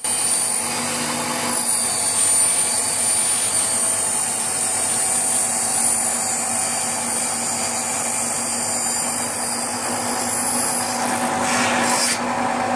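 An old table saw running and ripping a wooden board lengthwise along its fence: a loud, steady whine from the motor and blade over the noise of the cut.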